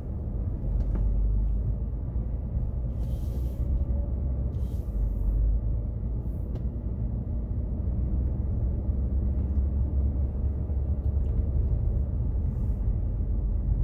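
Car driving, heard from inside the cabin: a steady low rumble of engine and road noise. A couple of brief hisses come about three and five seconds in.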